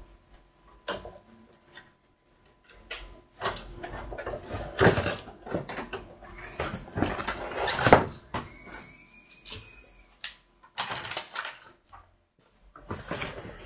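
Plastic packaging crinkling and rustling, with irregular clicks and knocks of hard plastic parts and cardboard as a toy quadcopter and its remote control are unpacked and handled.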